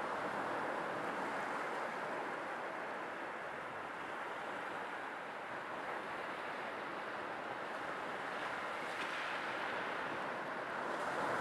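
Sea waves washing in as a steady rush of surf that swells and eases slowly, building again near the end.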